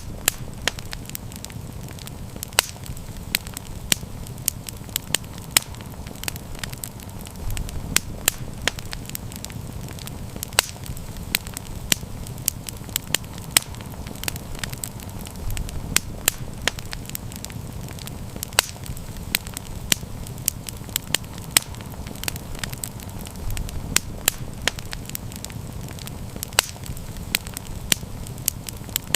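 Wood campfire burning, with sharp irregular crackles and pops over a steady low rush of flame. The low rush swells briefly a few times.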